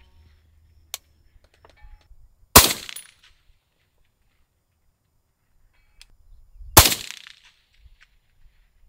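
Two shots from a suppressed rifle, about four seconds apart. Each is a sharp crack with a short echoing tail.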